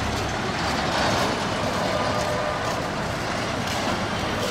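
Steady rumbling rush of moving vehicles, with a faint high whine for about a second near the middle.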